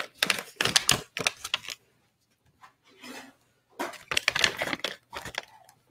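A snack package crinkling and tearing as it is pulled open by hand: a run of crackles for nearly two seconds, then another run about four seconds in.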